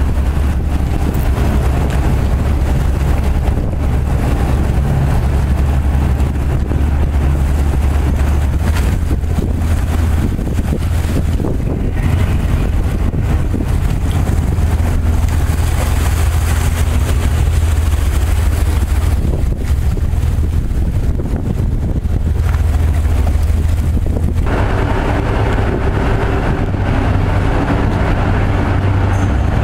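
A large engine running steadily with a deep, continuous drone, mixed with wind noise on the microphone; about 24 seconds in the engine sound changes and a few steady higher tones join it.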